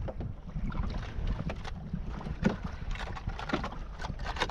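Wind rumbling on the microphone, with irregular short knocks and clicks over it.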